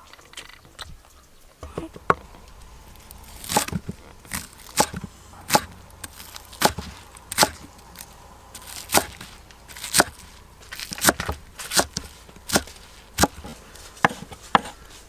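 Cleaver chopping green onions on a wooden cutting board: sharp knocks of the blade against the board, about one to two a second, starting about two seconds in.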